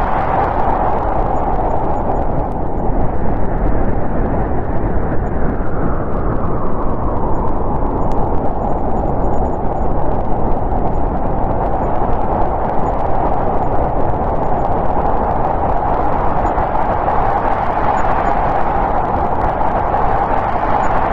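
Snowstorm wind blowing in a steady rushing whoosh. It eases a little near the middle and swells again toward the end.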